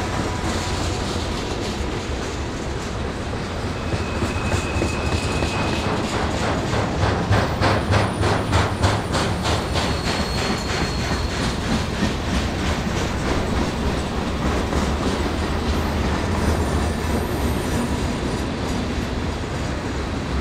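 Long freight train rolling past with a steady rumble. Its wheels clack rhythmically over the rail joints, most plainly a few seconds into the passage, and there are two brief high-pitched wheel squeals.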